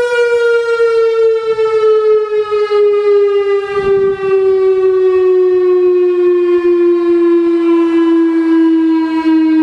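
Turkey Point nuclear plant's outdoor emergency warning siren sounding one steady, loud tone that slowly falls in pitch.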